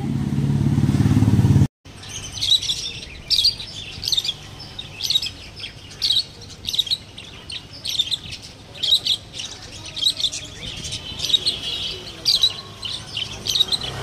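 A loud low rumbling noise for the first second and a half, then after a short break budgerigars chirping: short high chirps repeating about once a second.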